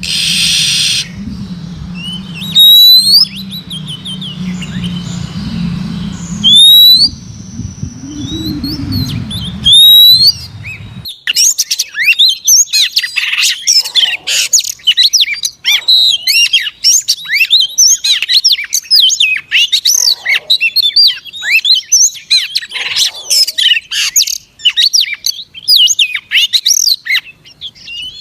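Oriental magpie-robin calling: first a loud, sharp whistled note repeated about every three and a half seconds over a low hum, then, a little under halfway through, an abrupt switch to a dense, fast stream of chirping song.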